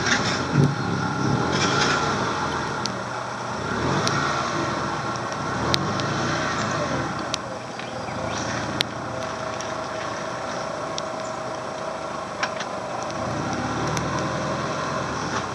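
First-generation Subaru Forester's flat-four engine revving up and down, then running steadier, while the car works slowly over rocks, with a few sharp knocks along the way.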